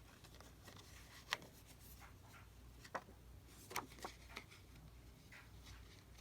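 Near-quiet room tone with a few faint, short taps and rustles from paper craft materials being handled on a desk.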